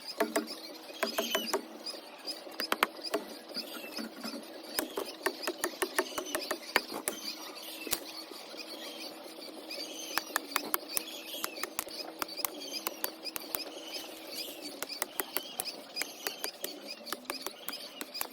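Chicks peeping in short repeated chirps, mixed with many sharp clicks and taps.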